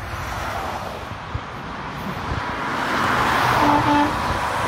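Highway traffic noise of tyres and diesel engines, building as a Freightliner Cascadia tractor approaches. Near four seconds in, its Hadley air horns give two short toots.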